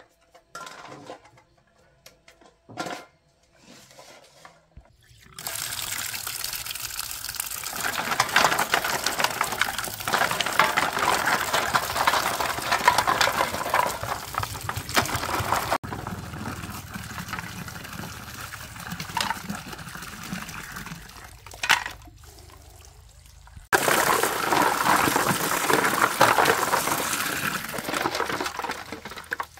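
Running water pouring into a steel basin and splashing, while plastic machine parts are scrubbed in soapy water. A few light knocks in the first seconds, then the water starts about five seconds in and grows louder twice.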